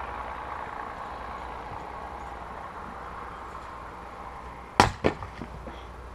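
A 2.5 kg Cyclone wood splitter (splitting maul) strikes a log with one sharp crack near the end, followed at once by a second knock and a few light clatters as the split wood falls.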